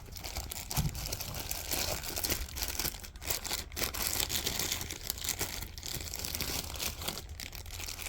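Packaging being crinkled and rustled continuously while the tool kit is unpacked, a dense run of small crackles with a few sharper crunches.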